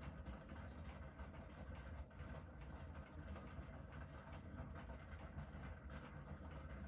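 Faint, rapid ticking, several ticks a second, over a low steady hum.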